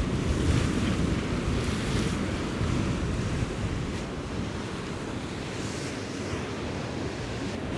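Sea waves washing against shoreline rocks, with wind buffeting the microphone; the surge is strongest in the first few seconds and then eases off.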